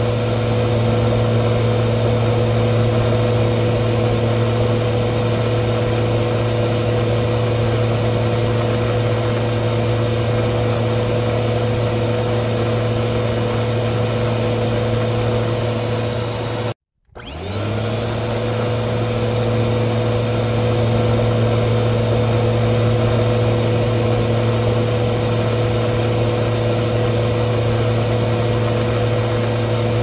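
Vacuum cleaner running steadily, a low motor hum under a high whine. About halfway through it cuts out for a split second and comes back, its whine rising back up to speed.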